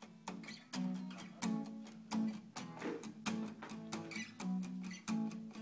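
Acoustic guitar strummed in a steady rhythm, a couple to a few strokes a second, repeating the same chords.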